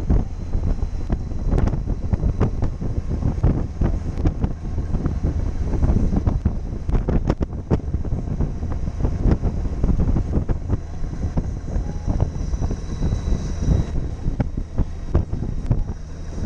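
Wind buffeting the microphone on a moving Honda Gold Wing motorcycle, a gusty low rumble with the bike's running and road noise underneath.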